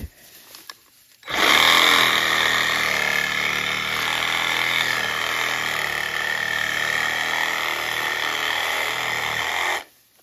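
Bauer 20-volt cordless reciprocating saw with a brushed motor cutting through a small tree's trunk near the ground. It starts about a second in, runs steadily for about eight seconds, and stops abruptly near the end.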